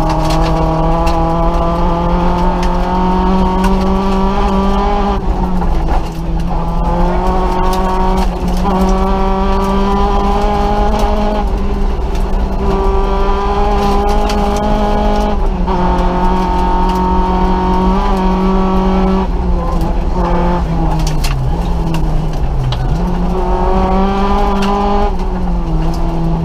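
Nissan Micra rally car's engine, heard from inside the cabin, driven hard at high revs through a special stage. The pitch climbs through each gear and drops at each shift every few seconds, with a couple of quick throttle lifts a little over three-quarters of the way through, over a steady rumble of tyre and road noise.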